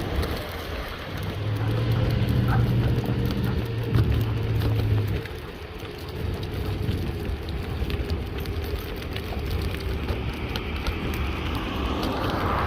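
Mountainboard wheels rolling over a rough surface as a dog pulls the board: a steady gritty rumble with many small crackles, and a low hum from about a second and a half to five seconds in.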